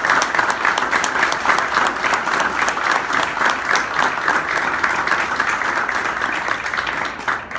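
Steady applause from many people clapping together. It cuts off suddenly near the end.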